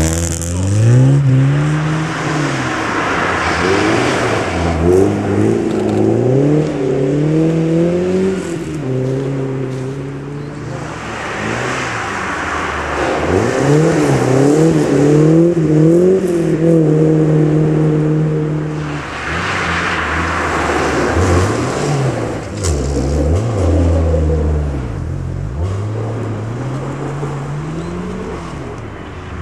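Classic rally cars driven hard on a snowy gravel stage, engines revving up and dropping back with gear changes in three spells of hard driving, with one steady held note for a few seconds in the middle.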